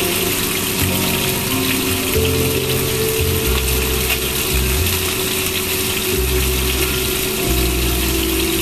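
Fish steaks frying in hot oil in a pan: a steady, dense sizzle full of fine crackles. Low held notes of background music change about once a second underneath.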